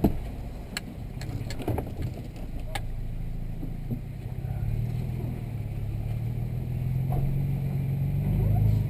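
Off-road vehicle's engine running steadily, its pitch and loudness slowly rising near the end, with scattered knocks and rattles from driving over rough ground.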